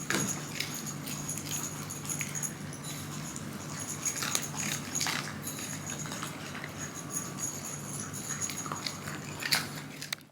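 Shiba Inu making small sounds, with scattered faint clicks and taps over a steady low hum.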